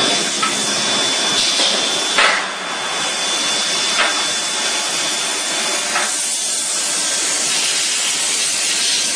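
Forging-line machinery running: a steady hiss with a thin high whine, and a short knock about every two seconds.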